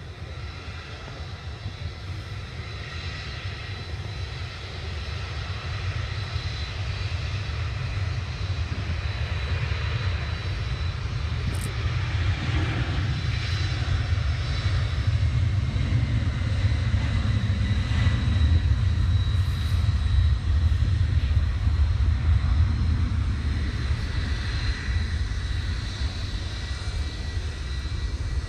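Boeing 767 jet airliner on its take-off roll at take-off thrust: a deep rumble with a steady high engine whine. It grows steadily louder to its loudest about two-thirds of the way through, then eases a little as it lifts off and climbs away.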